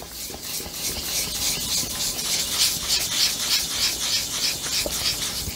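Wet 600-grit sandpaper rubbed by hand over the painted surface of a motorcycle gas tank, a rasping hiss in quick, even back-and-forth strokes. It is wet sanding, knocking down the edge of old airbrush paint before sealing.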